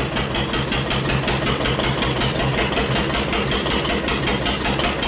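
1941 Witte CD 12-horsepower single-cylinder diesel engine driving its generator, running with a fast, even beat under heavy electrical load. It is pulled down below speed, with frequency and voltage sagging, which the owner puts down to slop in the governor linkage.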